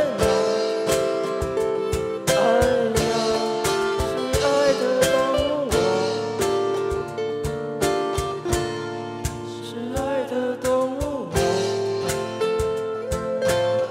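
Live acoustic band music: acoustic guitars playing chords over a cajón keeping a steady beat, with a lead melody that bends and wavers in pitch above them.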